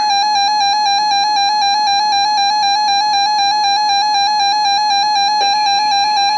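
Emergency Alert System attention signal: a loud, steady electronic alert tone pitched near 850 Hz, held unbroken, signalling that an emergency warning message is about to follow.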